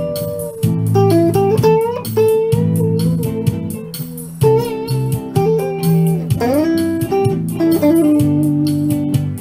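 Guitar playing an instrumental break between sung lines: picked lead notes with several upward string bends over repeated low bass notes.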